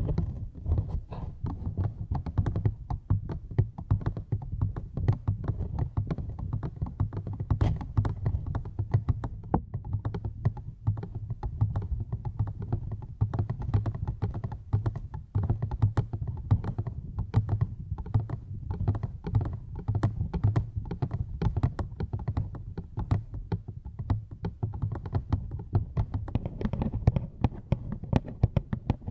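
Rapid, continuous close-miked tapping and clicking, many small taps a second over a low, muffled thudding, as in an ASMR tapping trigger.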